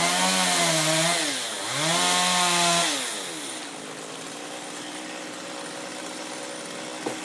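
Chainsaw running at high revs, its pitch sagging and picking back up twice, then dropping to a steady idle about three seconds in.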